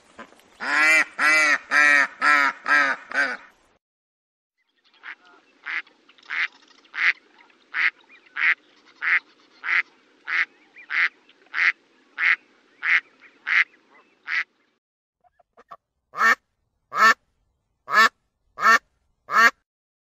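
Duck quacking in three separate series. First comes a quick burst of about six loud, harsh quacks. After a pause there is a long, even run of about sixteen quieter quacks at roughly two a second, and after another pause five louder quacks spaced a little wider apart.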